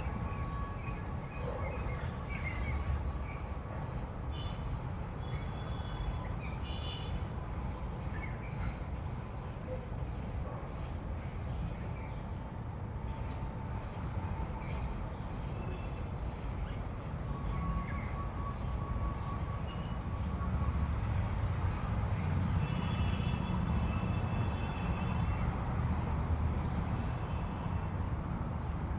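Steady, continuous insect chorus of crickets, a high buzzing in two bands, with scattered short bird chirps over a low rumble that grows louder in the second half.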